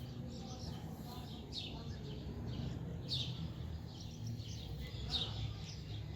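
Birds chirping: short, downward-sliding high chirps repeated every second or two over a low, steady background rumble.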